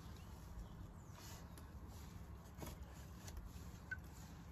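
Faint low background rumble with a few light clicks as the hands work the 16mm-scale garden railway track and its timber support, and a brief high chirp near the end.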